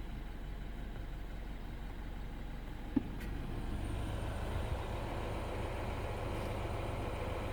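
BMW F20 116i engine running, with a single click about three seconds in; shortly after, the engine note grows a little louder and a thin, high, steady whistle sets in and holds.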